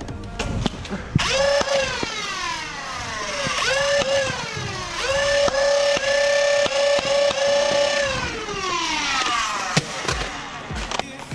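Nerf Elite Stryfe's electric flywheel motors spinning up with a rising whine, held at speed, then winding down in long falling whines, three times over; the middle run holds steady for about three seconds before slowly winding down. A few light clicks sound while it is spun up.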